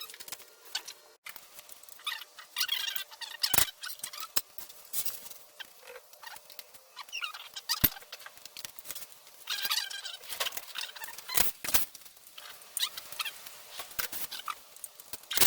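Scattered clicks and knocks of metal tools and parts, with a few sharper knocks and stretches of squeaky scraping, as an engine is worked on by hand.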